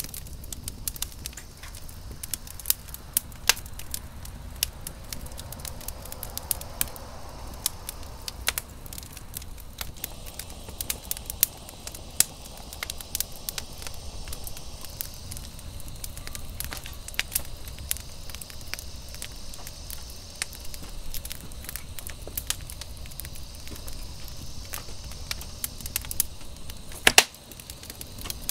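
Wood fire crackling in a metal fire pit, with frequent sharp pops over a low steady rumble. A louder cluster of cracks comes near the end.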